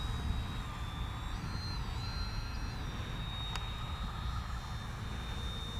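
Electric brushless motor and propeller of a Flite Test Freedom Fox RC plane whining steadily in flight. The pitch rises about a second in and settles back a second later as the throttle changes. A low rumble runs underneath.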